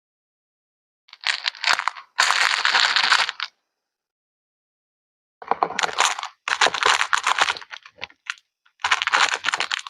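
Bursts of fine, dense crackling, like something crinkling or fizzing as it is handled. There are three longer stretches of a second or two each, plus one short burst, with silence between them.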